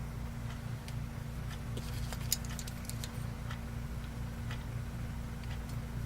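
Light scattered clicks and ticks of small plastic and metal RC shock parts being handled during assembly, with a quick cluster of sharper clicks about two seconds in, over a steady low hum.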